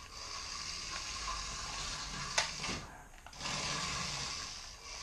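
Toy RC race car's small electric drive motor and gears whirring as it drives on a hardwood floor. There is a click about two and a half seconds in, and the whir drops out briefly just after before picking up again.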